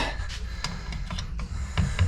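A few light clicks and knocks of small metal valve parts and tools being handled, spaced irregularly over a low steady hum.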